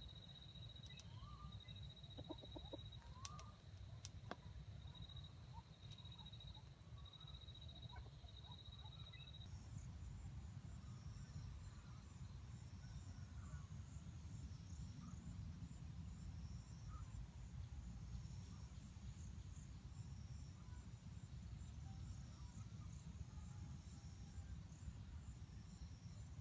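Faint clucking of wild junglefowl: a few short calls in the first several seconds, over a low steady rumble and high insect-like chirping.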